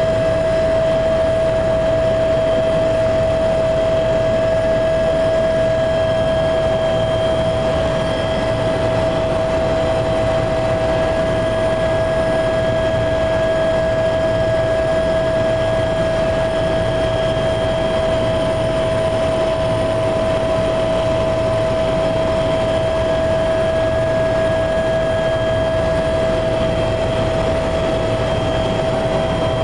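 Helicopter cabin noise in flight: a loud, steady engine and rotor drone with a high-pitched whine held at one pitch.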